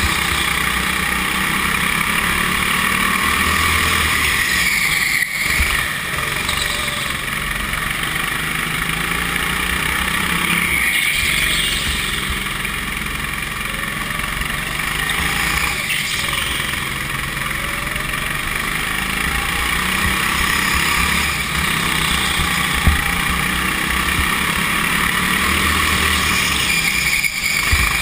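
Go-kart engine running hard, heard from on board the kart, with its pitch rising and falling and brief dips every few seconds as the throttle is lifted for corners.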